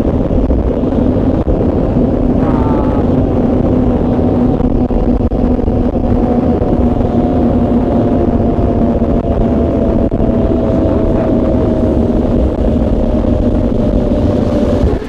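Zipline trolley running along the cable at speed, a loud steady whir with a steady hum; about two and a half seconds in a higher tone joins and slowly falls in pitch until near the end.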